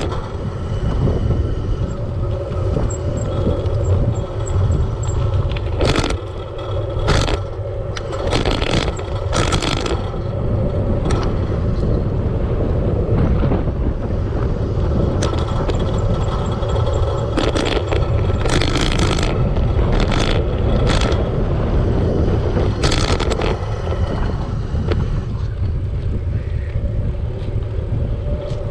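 Continuous wind and road noise from riding a bicycle, with a steady hum underneath. About a dozen short sharp noises come at irregular times, bunched around 6 to 10 seconds in and again around 17 to 23 seconds.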